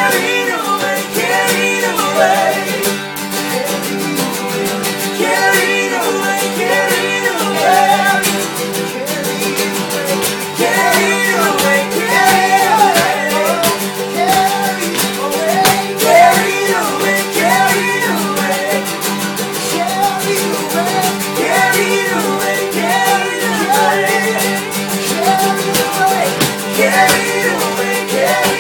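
Acoustic folk band playing live: two acoustic guitars strummed hard with a mandolin, and voices singing over them.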